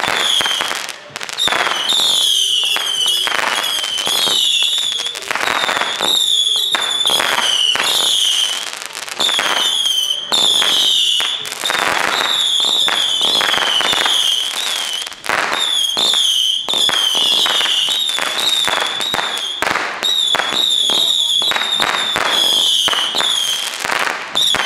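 Original 'Spanish Storm' 750-shot whistle cake firing very fast: shrill whistles one after another with barely a gap, each sliding down in pitch, over a rapid string of bangs from the shots.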